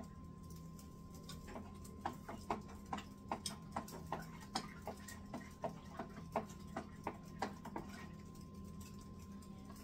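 Long plastic spoon stirring liquid in a plastic fermenting bucket, knocking and scraping against the bucket's sides and bottom in irregular clicks about two a second, thinning out near the end. A faint steady hum runs underneath.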